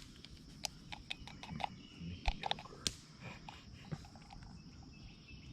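Steady high droning of insects, with irregular small clicks and taps from handling camp cooking gear close by.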